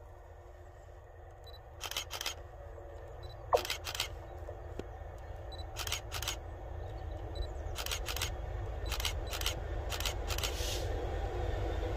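GB Railfreight Class 66 diesel locomotive, its EMD two-stroke V12 running, approaching and growing steadily louder. Sharp clicks, mostly in pairs, sound every second or two over the top.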